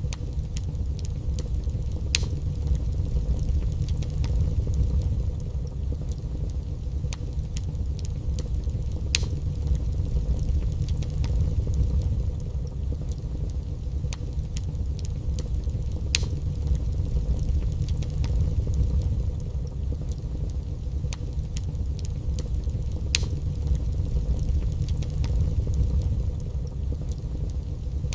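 Wood fire burning in a fireplace: a steady low rumble with frequent sharp crackles and a few louder pops.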